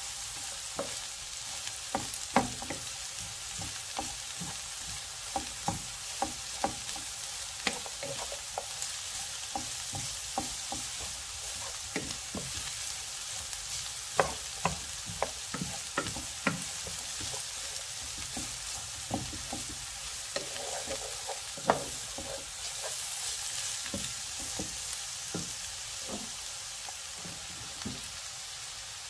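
Shredded cabbage, carrot and onion sizzling in a hot pan as a slotted wooden spatula stirs and turns them, with a steady hiss and scattered knocks and scrapes of the spatula against the pan, a few of them sharp and loud.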